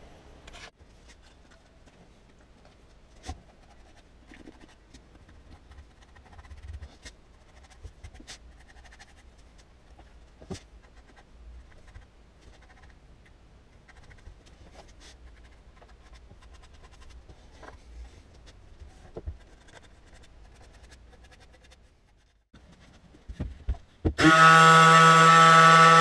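Faint handling clicks and knocks at a workbench, then about 24 seconds in a handheld power tool starts abruptly and runs loud and steady with a humming tone.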